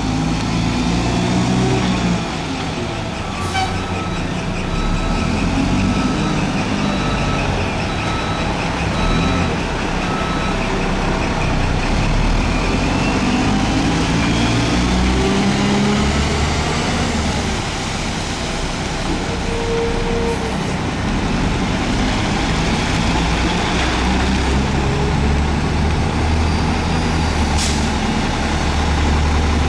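Mack MR front-loader garbage truck diesel engines running and revving as the trucks maneuver, with a backup beeper beeping through the first several seconds. A short air-brake hiss comes near the end.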